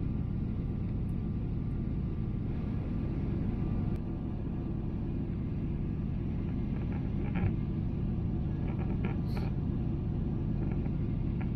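Steady low rumble inside the cabin of a Boeing 777-300ER in flight: the noise of its GE90-115B engines and the air rushing past the fuselage, with a few faint clicks near the middle.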